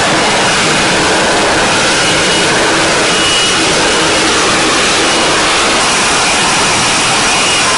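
Jet engines running with a steady, loud rushing noise and a faint high whine that does not change.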